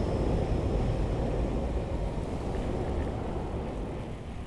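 Low rushing noise of wind on the microphone and rolling tyres from a bicycle riding along a paved city street. It eases off gradually toward the end.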